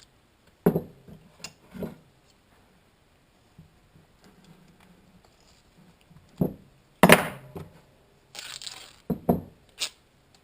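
Duct tape being pulled off the roll and handled while a strip is cut: a series of sharp snaps and cracks spread through, the loudest about two-thirds of the way in, followed shortly by a brief rasping rip of tape.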